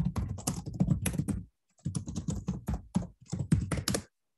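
Fast typing on a computer keyboard in two runs of keystrokes, with a short pause about a second and a half in, stopping just before the end.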